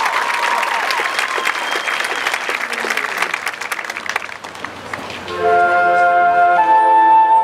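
Audience applause with a few whistles, dying away over the first four seconds. About five seconds in, the high school marching band comes in with loud held chords, with woodwinds on top, and the chord steps up in pitch a second later.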